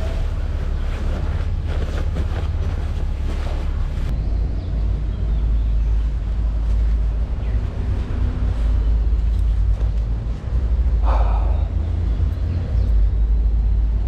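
Kawasaki Ninja 400's 399 cc parallel-twin engine running steadily through an Akrapovic full-system exhaust, with a deep, loud exhaust note.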